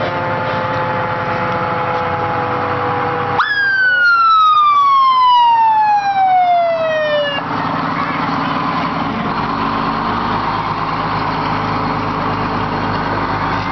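Vintage fire engine's siren: a sustained tone falling slowly, then about three and a half seconds in a loud wail starts high and glides steadily down for about four seconds. After it, the low rumble of the passing truck and street noise.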